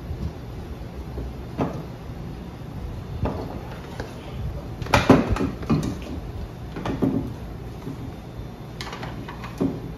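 Knocks and clatter of plastic water filter parts being handled, a few scattered knocks with a denser cluster about five seconds in.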